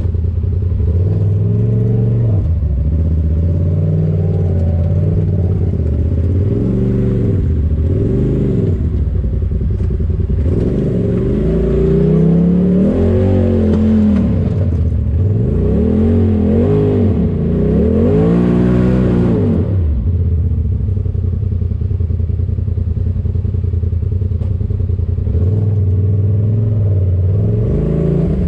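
Side-by-side UTV engine running and being revved up and down over and over, its pitch rising and falling in repeated surges through the middle, then settling back to a steady lower run near the end.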